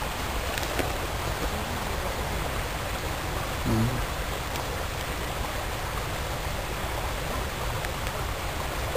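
Steady rushing outdoor noise, like running water or wind on the microphone, with a short low voiced murmur about four seconds in.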